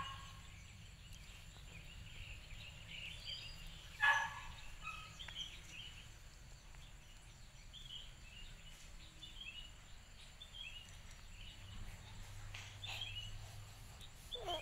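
Small birds chirping faintly in the background, short scattered chirps throughout, with one louder short call about four seconds in.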